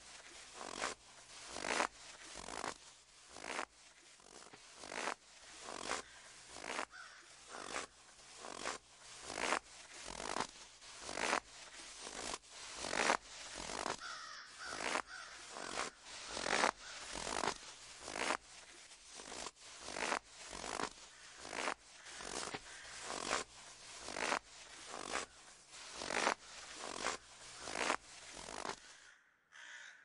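Footsteps crunching through snow at a steady walking pace, a bit more than one step a second, with a brief pause near the end.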